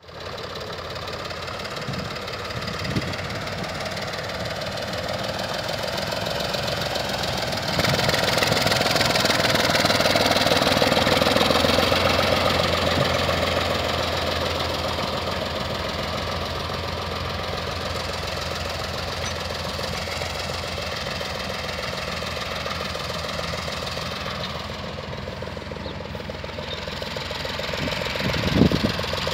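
Fahr 66 tractor's diesel engine running steadily as the tractor drives, louder from about eight seconds in and easing back a few seconds later.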